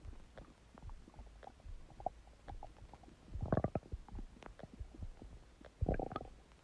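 Human stomach gurgling: a string of small pops and squelches, with two louder bubbling gurgles about halfway through and near the end.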